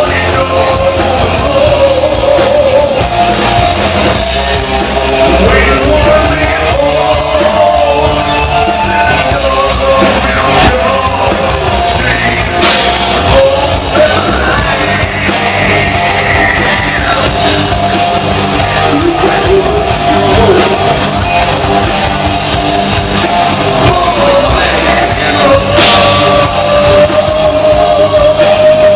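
Live rock band playing, with a male lead singer holding long notes over electric bass, electric guitars and a drum kit.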